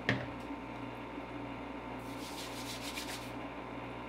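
A single sharp knock, then palms rubbing together with a dry hiss for about a second: a few drops of fresh blueberry brandy distillate being rubbed between the hands to nose it. A steady low hum runs underneath.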